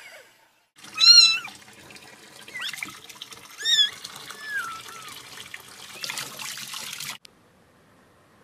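A kitten mewing in high, wavering cries, about four of them, the first the loudest, over a steady rush of running water like a tap. The sound stops abruptly about seven seconds in.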